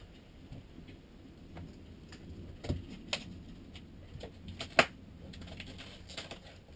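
Scattered light clicks and taps, with a sharp, louder click about five seconds in.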